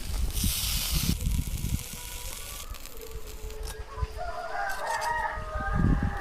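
A rooster crowing: one long, wavering call over the last three seconds or so. A brief hiss comes about half a second in.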